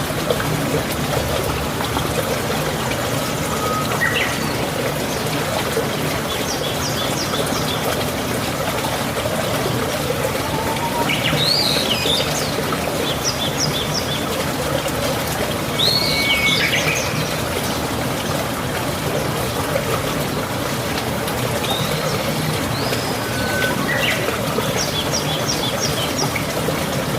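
Birds chirping and trilling now and then, short sweeping calls and quick trills coming every few seconds, over a steady rush of running water.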